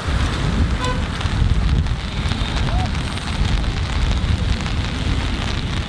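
Wind buffeting the microphone, a steady low rumble, over an even hiss of rain.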